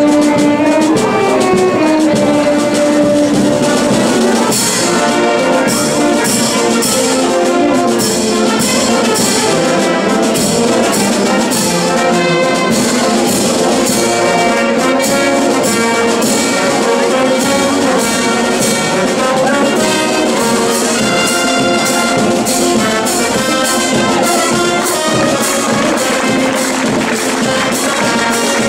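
A wind band with trumpets and trombones playing. Sustained brass lines are joined about four seconds in by a steady percussion beat.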